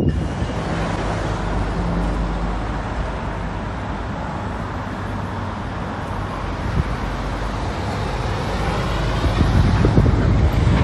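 Road traffic going by: a steady rush of tyre noise over a low engine rumble.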